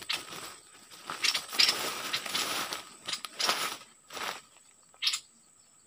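Irregular rustling and crackling in dry leaves and brush, loudest in the middle of the stretch, as someone moves in to the hanging trap cage. A faint steady high tone runs behind it.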